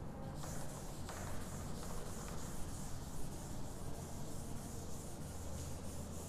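Blackboard duster rubbing across a chalkboard, erasing chalk writing in repeated wiping strokes that start about half a second in. A steady low hum sits underneath.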